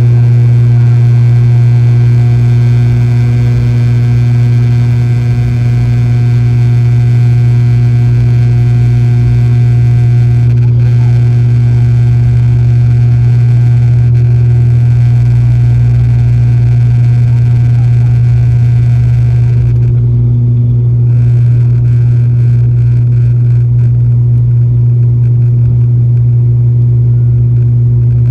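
ATR 72-600 turboprop's Pratt & Whitney PW127M engine and six-blade propeller at takeoff power, heard from inside the cabin beside the propeller: a loud, steady low drone under a rushing noise. About twenty seconds in, the higher rushing noise drops away sharply while the drone carries on.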